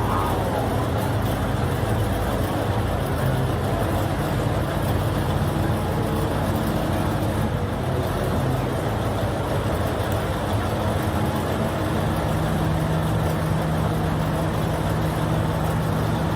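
Twin Caterpillar diesel engines of the ACCO Super Bulldozer running steadily, a low, even engine drone. About twelve seconds in, a steady low hum comes up more strongly.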